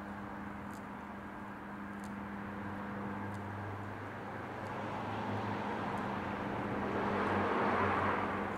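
A car passing by: a steady engine and tyre noise that grows louder to a peak near the end, then begins to fade, over a steady low hum.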